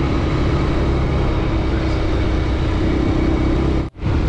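Motorcycle engine running steadily at cruising speed, with a constant rush of wind noise over it. The sound cuts out for a split second near the end, at a splice in the footage, then carries on.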